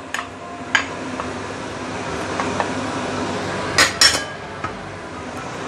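Sharp clinks of a plate and utensils against a stainless steel pan as fishmaw pieces are tipped into the soup: a couple of light clinks early on, a louder pair about four seconds in, then a small one.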